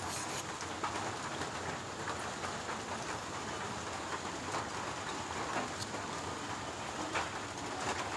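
Steady rain falling, an even hiss with scattered light clicks.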